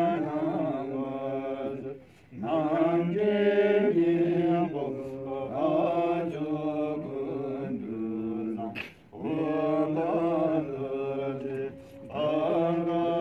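Tibetan Buddhist monks' prayer chanting, recited from a prayer text in long sung phrases. The chanting breaks off in short pauses about two, nine and twelve seconds in.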